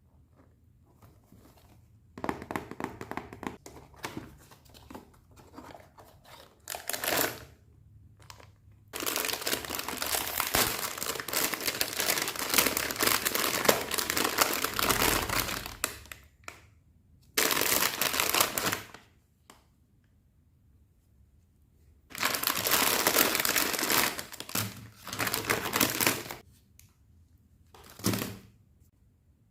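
Packaging crinkling as it is opened and handled, in irregular bursts: a few short ones, a long stretch in the middle, and more bursts later.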